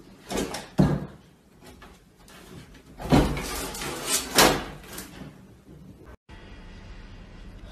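A cat jumping at a door and hanging from its lever handle: the door bumps and rattles in a few knocks, the loudest about three and four and a half seconds in.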